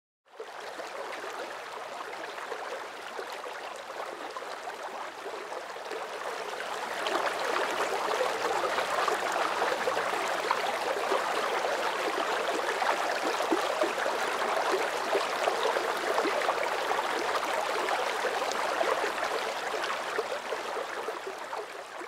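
Water running and splashing as it spills through the stone pools of a fish ladder: a steady rushing that grows louder about seven seconds in.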